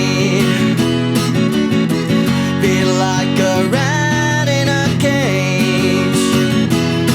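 Music: a guitar-led band track with steady chords underneath and a lead melody that bends and slides in pitch, with no lyrics heard.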